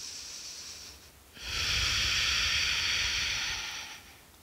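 A woman breathing deeply into a headset microphone while holding a wide squat yoga pose: a faint breath, then about a second and a half in a louder, airy breath lasting roughly two and a half seconds.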